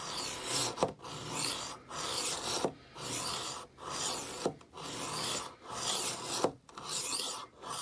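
Abrasive disc of a Tumbler rolling knife sharpener rolled back and forth along a kitchen knife's edge: a gritty rasp in even strokes just under a second each, about nine in all, with a short break at each change of direction.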